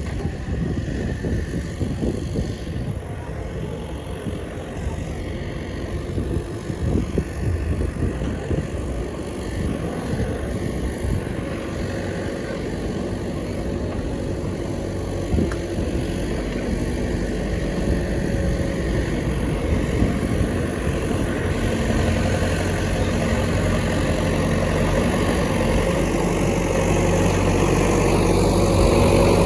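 A motor vehicle engine running, with steady engine tones that grow louder through the second half. Gusty wind rumbles on the microphone in the first half.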